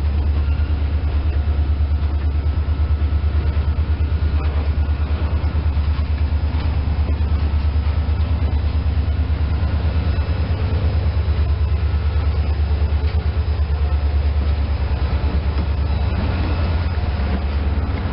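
EMD SD40-2W diesel-electric locomotive's 16-cylinder 645 two-stroke engine running as it passes close, a deep, rapid, even throb.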